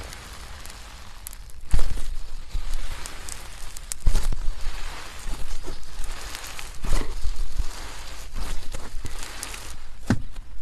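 Slime being handled, with irregular crackles, pops and squishy clicks.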